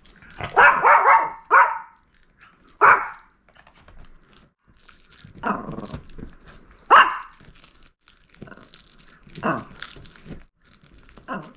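A Maltese dog giving about eight short barks, a quick few near the start and then single barks every second or two.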